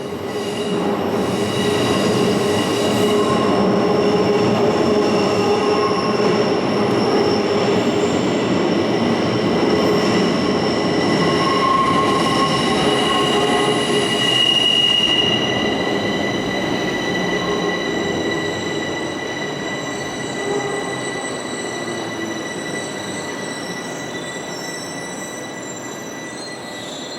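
Bucharest Metro train running on the rails, its wheels squealing with several steady high tones over the running noise. It swells up at the start, stays loud through the first half, then slowly fades.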